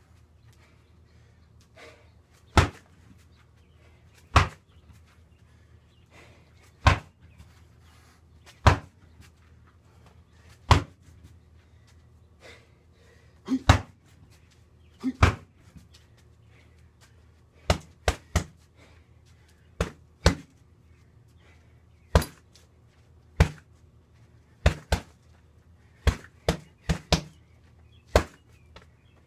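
Punches and kicks landing on a freestanding heavy punching bag: about twenty sharp thuds. They start out singly, about two seconds apart, then come quicker in pairs and short combinations in the second half.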